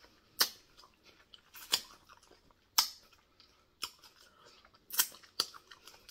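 A person chewing raw tomato slices close to the microphone, with six sharp, wet mouth clicks spaced about a second apart.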